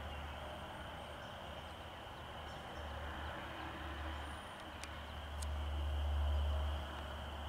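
Steady background rumble of distant road traffic, swelling louder for a second or so about five and a half seconds in.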